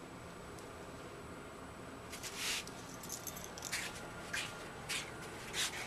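Quiet room noise with a series of soft rustling scuffs starting about two seconds in, coming roughly every half second to a second.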